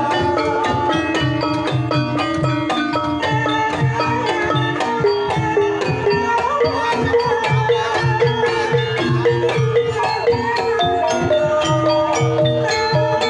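Banyumasan-style Javanese gamelan playing a tayub piece: tuned metallophones and gongs strike interlocking notes over a steady kendang drum pattern.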